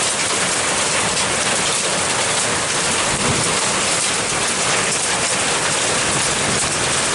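Hail mixed with heavy rain coming down, a dense steady clatter of hailstones and raindrops striking surfaces.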